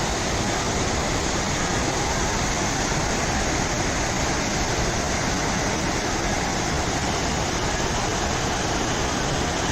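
Waterfall pouring, a steady rush of falling water with no change.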